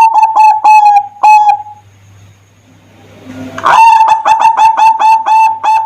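Zebra dove (perkutut) singing: a quick run of short cooing notes, a pause of about two seconds, then another fast run of notes at about four a second.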